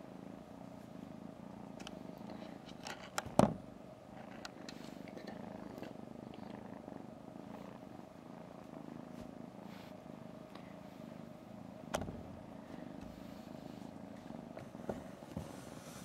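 British Shorthair kitten purring steadily close to the microphone. A sharp knock comes about three and a half seconds in, and a softer click about twelve seconds in.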